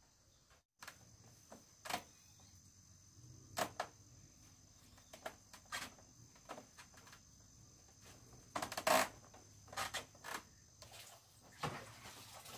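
Insects chirring steadily, with irregular short knocks and rustles, the loudest about nine seconds in.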